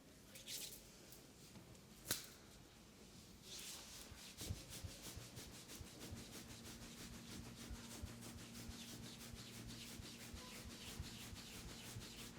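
Hands rubbing quickly and rhythmically over skin in a massage, faint; the fast, even strokes start about four seconds in. A single sharp click comes about two seconds in.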